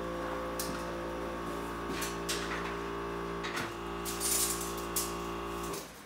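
A steady machine hum with scattered clicks, light knocks and rustles of tools being handled; the hum cuts off abruptly near the end.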